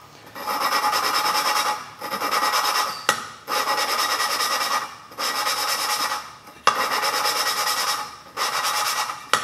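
Valve lapping: a valve is spun back and forth on its seat in a Chrysler 440 cast-iron cylinder head, with valve grinding compound between them, giving a gritty rasping. It comes in about six strokes of roughly a second each, with short pauses between.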